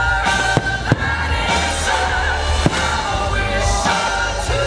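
Fireworks show soundtrack music with singing, punctuated by a few sharp firework bangs.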